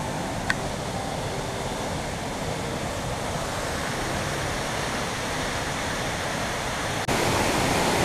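Waterfall rushing steadily, with a brief click about half a second in. A little after seven seconds the sound cuts abruptly to a louder, nearer rush of water from the stream below the falls.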